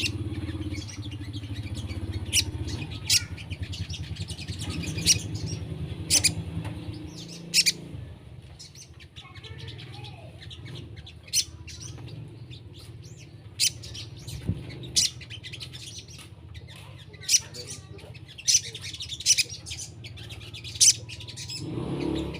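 Sogon birds calling: short, sharp, high-pitched chirps repeated at irregular intervals, over a low hum that drops away about eight seconds in.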